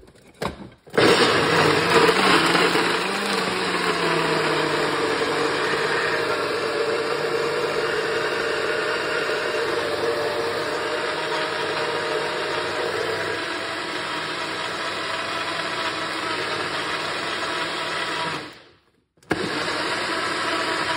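Personal blender motor running, blending chunks of orange, ginger and other fruit with water. It starts about a second in, is loudest just after starting, then runs steadily. Near the end it cuts out for under a second and starts again.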